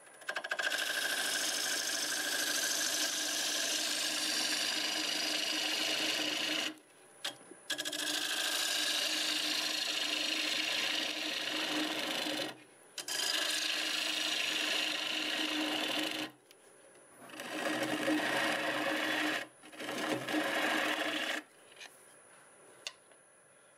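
Half-inch bowl gouge cutting into a mimosa bowl blank spinning on a wood lathe at about 800 RPM, hollowing the inside. Five cutting passes of a few seconds each, broken by short pauses, with the cutting dropping away near the end.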